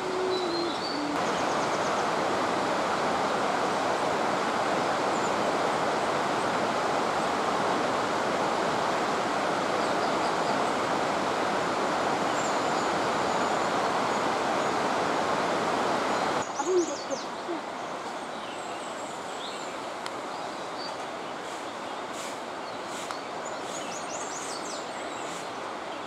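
Low hooting bird calls right at the start, then a steady rushing noise. About sixteen and a half seconds in, this gives way to a quieter background with short, high, thin bird chirps and a few sharp clicks.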